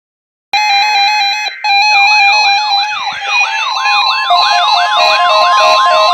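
Weather radio receivers sounding their alert alarms together: a fast beeping that steps between two pitches, then a siren-like sweep repeating about three times a second, with a steady 1050 Hz weather radio alert tone joining a little past halfway.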